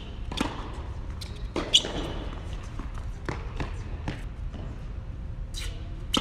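Tennis rally: a serve struck about half a second in, then a string of sharp racket hits and ball bounces on the hard court, the loudest a little under two seconds in.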